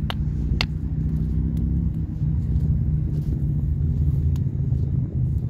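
A steady low rumble, with two sharp snaps in the first second and a few faint clicks later.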